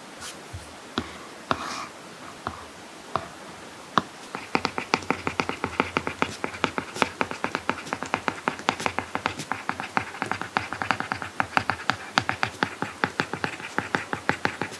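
Apple Pencil tip tapping on an iPad Pro screen fitted with a matte paper-like screen protector: a few single taps, then from about four seconds in a fast run of tapping and scratching as it writes by hand.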